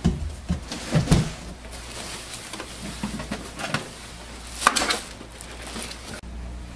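Handling noise as an all-in-one inkjet printer is gripped and lifted off the floor: a few soft knocks near the start and about a second in, then a brief rustle a little past the middle.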